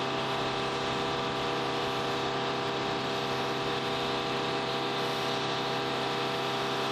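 KC-135 tanker's CFM56 turbofan engines running steadily on the ground, left on for hot-pit refueling: a constant whine of several steady tones over an even hiss.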